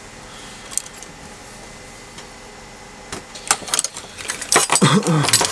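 Near-quiet background for the first three seconds, then a series of clicks and light rattles as a charger's circuit board, with its aluminium heatsink and wires attached, is handled and shifted on the table.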